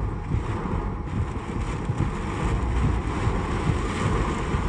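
Rain and wind from a severe storm heard from inside a car's cabin: a steady rushing noise with an uneven low rumble.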